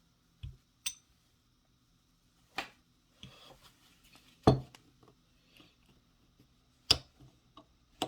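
Small steel parts of a 3/8-inch hand ratchet clicking and clinking as they are handled and fitted back into the ratchet head, a handful of separate taps with the loudest about four and a half seconds in.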